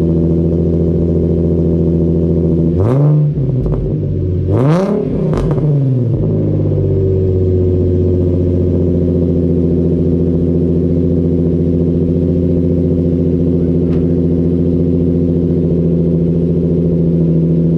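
Infiniti G35 sedan's VQ35HR V6 idling through test pipes in place of its catalytic converters, heard at the exhaust tip. It is revved twice between about three and six seconds in, with a crackle as each rev drops, then settles back to a steady idle.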